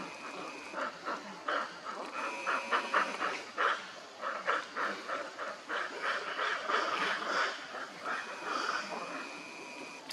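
Long-tailed macaques calling in a rapid series of short calls, several a second, loudest around the middle.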